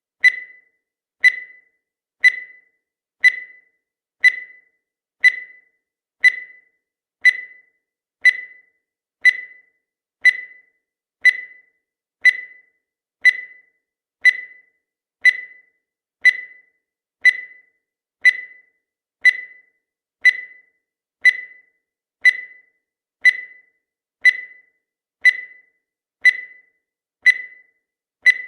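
Countdown timer sound effect: a short, high beep-like tick once every second, each dying away quickly.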